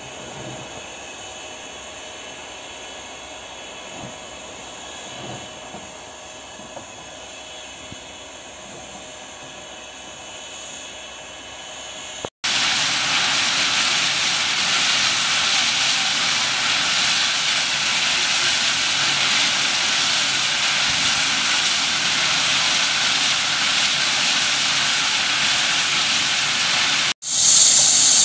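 Soviet L-class 2-10-0 steam locomotive L-3108 venting steam with a loud, steady hiss, which cuts off abruptly near the end, where another loud sound follows. Before the hiss, for roughly the first twelve seconds, a much quieter steady background with a few faint knocks.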